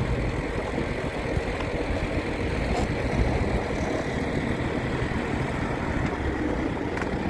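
Engine of heavy farm machinery running steadily, a constant low rumble with no change in speed.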